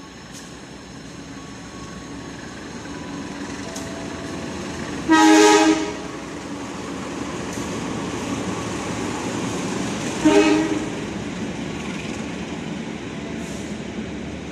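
CC 204 diesel-electric locomotive sounding its horn twice: a longer blast about five seconds in and a shorter one about five seconds later. Between and after the blasts the rumble of the passing passenger train keeps growing louder.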